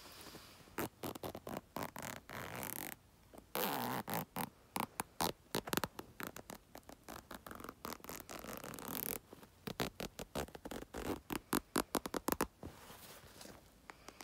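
Close-up ASMR scratching and rubbing right at the microphone: quick, irregular strokes in clusters, with two longer rubs about 3.5 and 8.5 seconds in.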